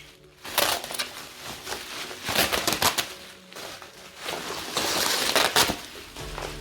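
Packaging rustling and crinkling by hand as a parcel is opened, in several irregular bursts, the longest from about four to nearly six seconds in.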